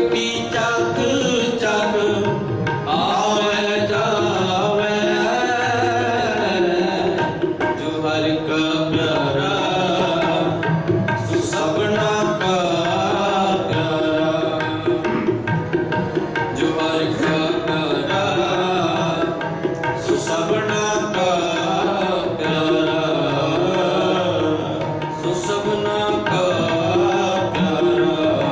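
Sikh kirtan: tabla playing a steady rhythm and harmonium sustaining chords under a man's voice singing a wavering, ornamented melody.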